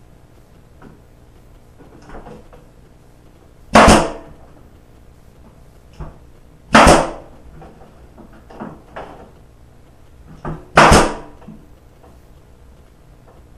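Pneumatic brad nailer firing three times, a few seconds apart, each a sharp crack as it drives a brad through crown molding into the wall. Fainter knocks come between the shots.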